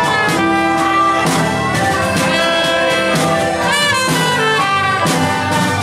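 Live band music: held melody notes over a repeated beat, with one wavering, bending high note about four seconds in.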